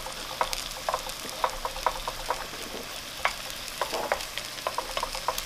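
Eggs frying with onion in oil in a nonstick skillet, a steady sizzle, with irregular light taps and scrapes of a wooden spatula against the pan.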